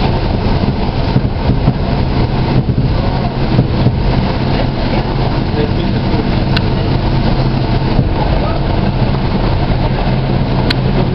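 SA103 diesel railbus running at speed, heard from inside the car: a steady engine drone under constant wheel-and-rail noise. Two short sharp clicks come through, one just past the middle and one near the end.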